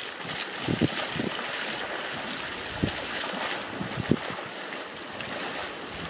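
Legs wading fast through shallow river water: a steady rush of splashing, with a few heavier sloshing strides.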